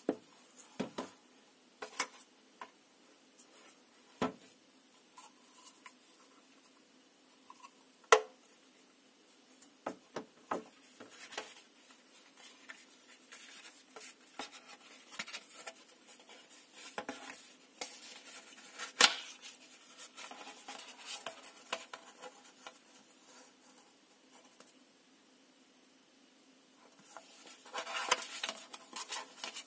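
Cardboard packaging and paper inserts being handled: scattered light taps, clicks and scrapes of card, with two sharp knocks, one about eight seconds in and one near the middle, and a denser rustle of paper near the end.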